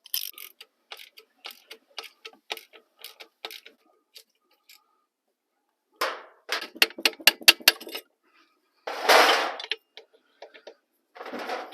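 Ratchet wrench with a 13 mm socket clicking as it works the brake caliper bolts loose: scattered clicks at first, then a quick run of clicks, then two short rasping bursts near the end.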